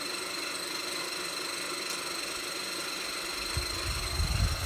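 Steady outdoor background hiss with a faint, steady high-pitched whine. About three and a half seconds in, low rumbling bumps begin on the microphone.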